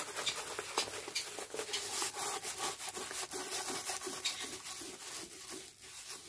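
Rolled diamond painting canvas being unwrapped and unrolled by hand: continuous rubbing and rustling with small scrapes and clicks.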